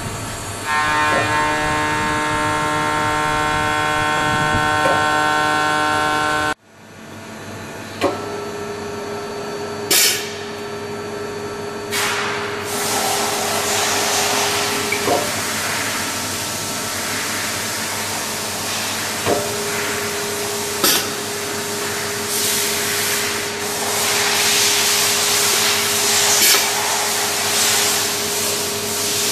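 Brusa e Garboli FIL30 wood threading machine running. A steady multi-tone motor whine stops abruptly about six seconds in. It gives way to a steady hum with several sharp clicks as the mechanism moves, and a hiss that swells through the second half.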